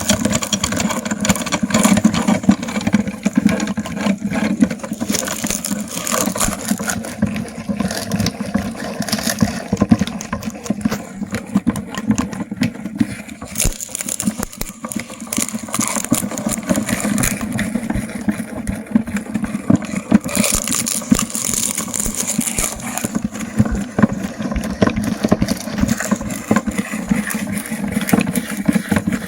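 Electric meat grinder running steadily with a constant motor hum while it grinds ice cream, with crackling and rattling from the auger working the food.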